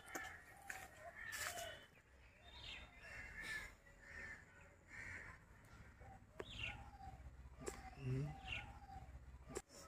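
Crows cawing repeatedly, short separate calls scattered throughout, with a brief low sound about eight seconds in.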